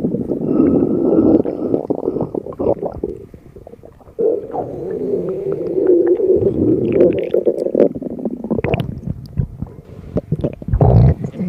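Hungry stomach growling and gurgling in long, uneven rumbles, with a brief lull about three seconds in before it starts up again.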